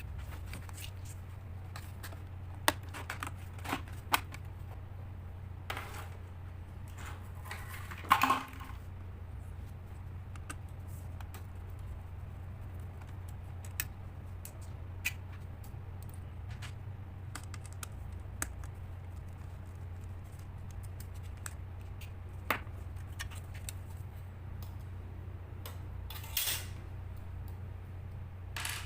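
Scattered small clicks and taps of hands and tools working on a laptop's case and parts, over a steady low hum. The loudest is a short scrape about eight seconds in, with a brief rustle near the end.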